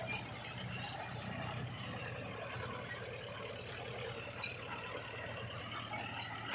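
Heavy machine's engine running steadily, a low even hum with a few small clicks.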